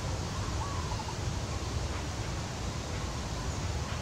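Steady outdoor background noise, a low rumble under an even hiss, with a faint short chirping call around half a second to a second in.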